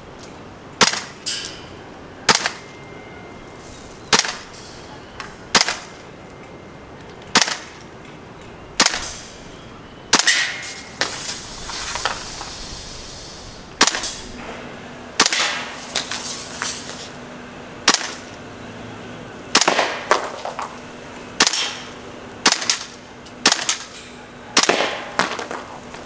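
WE SCAR gas blowback airsoft rifle firing single shots in semi-auto, one every second or two, each a sharp pop with a short tail. After the shot about ten seconds in there is a hiss lasting two or three seconds.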